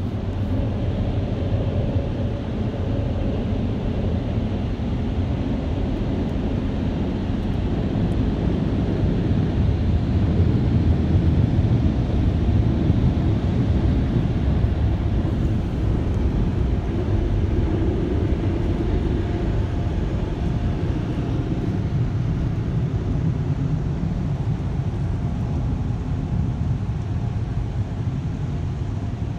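Air dryer blowers of a PDQ LaserWash 360 Plus car wash blowing on the car, a loud, steady, deep rush of air heard from inside the car cabin, swelling a little about a third of the way through.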